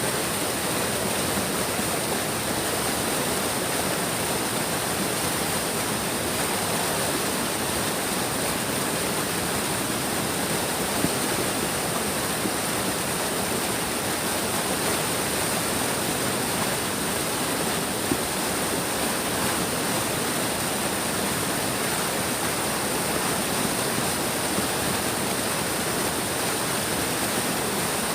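A big stream running, a steady, even rush of water with no breaks or separate splashes.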